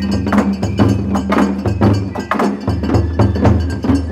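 Japanese festival hayashi music played live on a float: taiko drums and percussion struck in a steady rhythm, about three strokes a second.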